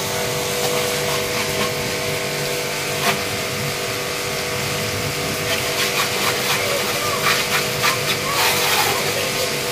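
Electric high-pressure washer (2300 W, 210 bar) running with a steady hum, its water jet hissing and spattering against a motorcycle and the wet ground. The spattering gets louder and choppier in the second half.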